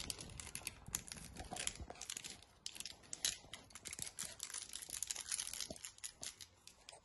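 Small plastic wrapper crinkling as it is handled and pulled open, a run of small irregular crackles and clicks that thins out near the end.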